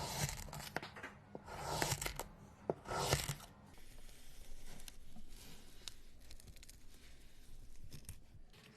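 Slime being handled and pulled apart by hand: three strong noisy bursts in the first three and a half seconds, then softer handling with scattered small clicks.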